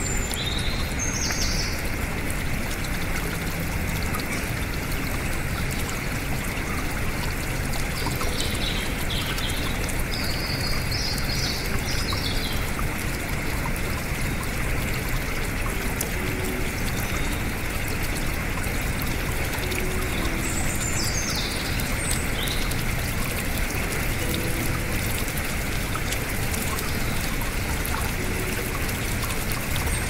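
Shallow stream running over rock ledges in small cascades, a steady rush of water. Birds chirp briefly a few times over it: near the start, around a third of the way in, and again about two-thirds through.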